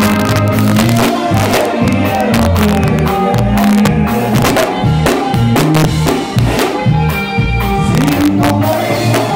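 Live norteño band music: button accordion and saxophone over a stepping bass line and a steady drum beat.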